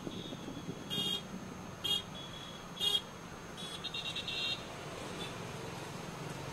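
Street traffic, a low steady rumble, with short high-pitched chirping sounds roughly once a second.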